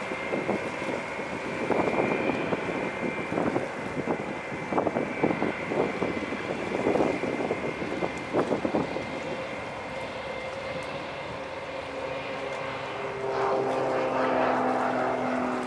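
Cessna Citation Longitude business jet climbing out after takeoff: the noise of its twin Honeywell HTF7700L turbofans, a steady high whine over an uneven, rough roar that eases off after about ten seconds. Near the end a different steady hum made of several tones comes in.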